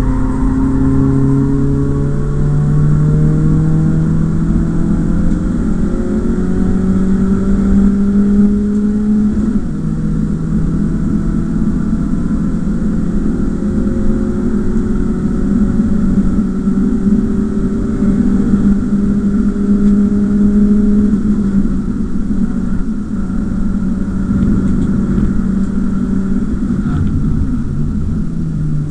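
BMW E36 318is four-cylinder engine heard from inside the cabin, driven hard on track. Its note climbs slowly in pitch, drops sharply about ten seconds in, climbs again, and settles lower after about twenty-two seconds.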